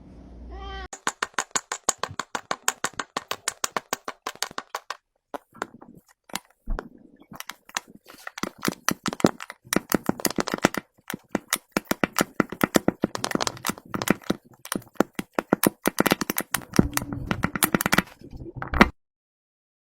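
Rapid, uneven run of sharp clicks and crackles, several a second, with a short lull about six seconds in, cutting off abruptly near the end.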